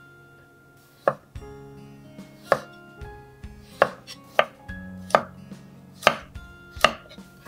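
Kitchen knife slicing a burdock root into diagonal pieces on a wooden cutting board: seven sharp knocks, about one a second, each as the blade goes through and strikes the board.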